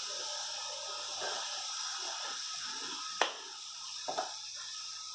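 Cooking oil hissing steadily in a non-stick frying pan just after being poured in. A sharp knock comes about three seconds in, followed by two lighter clicks a second later.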